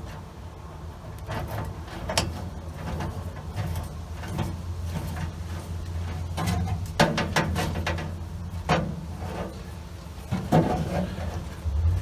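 Scattered clicks, taps and scraping of hands fitting a speedometer cable onto the back of a speedometer gauge, with sharper knocks about seven and ten seconds in, over a steady low hum.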